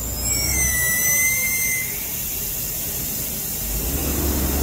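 Air escaping from a Kia Morning's front tyre through the valve stem, its valve core removed to deflate it: a high whistle for about two seconds that then stops. A low hum starts near the end.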